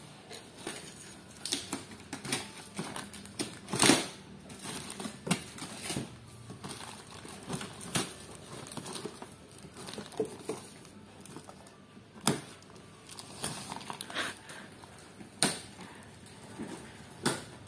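Cardboard packaging being handled and opened by hand: irregular crinkling and scraping with sharp knocks, the loudest about four seconds in.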